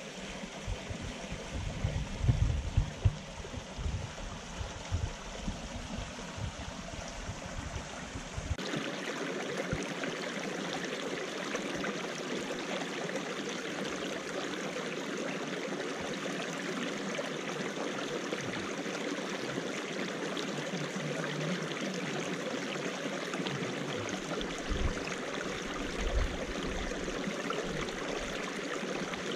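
Small mountain stream of ice-melt water trickling and splashing between rocks, a steady rushing noise. In the first few seconds low rumbles hit the microphone, loudest about two to three seconds in. After about eight seconds the water sound turns steadier and fuller.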